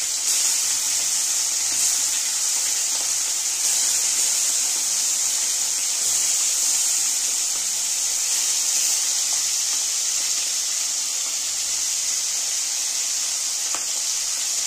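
Small turmeric-coated fish frying in hot oil in a steel wok: a steady, even high sizzle.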